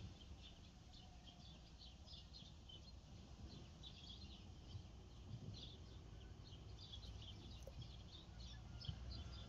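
Faint chirping of small birds, many short calls scattered throughout, over a low steady background rumble.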